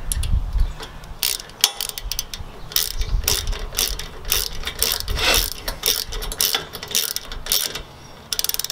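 Ratchet with a 10 mm six-point socket clicking in short, irregular runs as a nut is run down onto a bolt held still with an Allen key.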